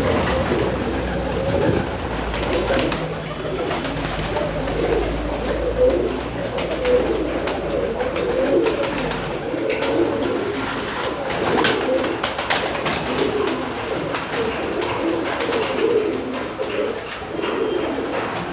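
A flock of domestic pigeons cooing together, many overlapping calls at once, with scattered sharp wing claps and flaps as birds fly and land on the perches.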